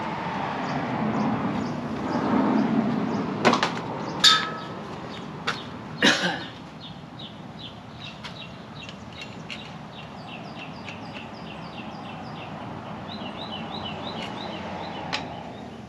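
A few sharp metallic clinks and knocks of tools and steering parts on a shifter kart's front end, about four to six seconds in, one of them ringing briefly. After them a bird chirps over and over in the background, short high notes.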